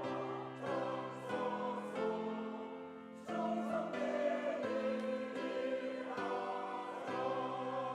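Church choir singing an anthem in parts, holding chords that change about every second.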